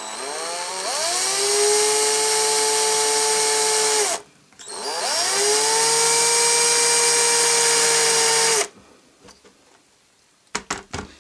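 Electric drill motor spinning up with a rising whine and running steadily as it bores a hole through a small piece of soft plastic pen lid. It stops about four seconds in, starts again half a second later, runs about four more seconds and stops. A few light clicks follow near the end.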